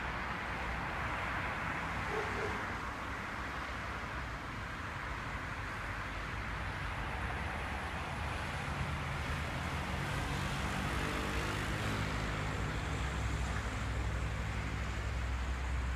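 Steady hum of distant road traffic, with an engine drone coming in about halfway through and growing louder toward the end.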